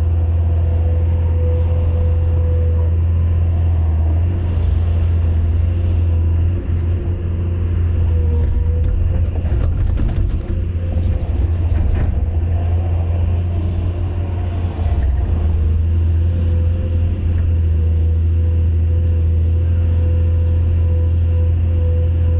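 Excavator's diesel engine running steadily with a deep hum and a steady higher whine. Partway through, the sound roughens for several seconds with scattered clicks and knocks, then settles again.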